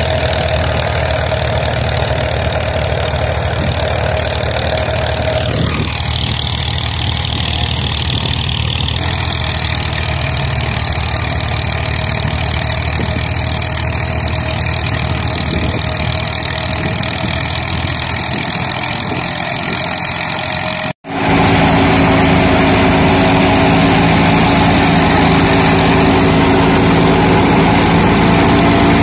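Tractor-driven wheat thresher running steadily: the tractor's engine and the spinning thresher drum make one continuous mechanical drone. It cuts out briefly about three-quarters of the way through, then comes back louder with stronger steady tones.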